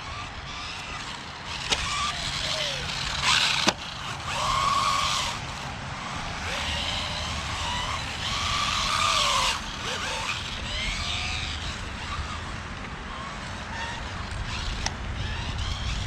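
Rlaarlo AMX12 RC buggy's electric motor whining up and down in repeated throttle bursts, over tyre and ground noise as it drives. There is a sharp knock about three and a half seconds in.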